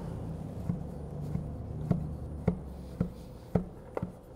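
Chef's knife chopping smoked brisket on a wooden cutting board: short knocks of the blade striking the board, a little under two a second, coming a bit quicker near the end.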